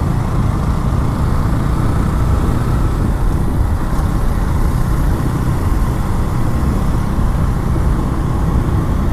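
Steady rushing noise of a motorcycle on the move: engine and road noise mixed with wind on the microphone, unbroken throughout.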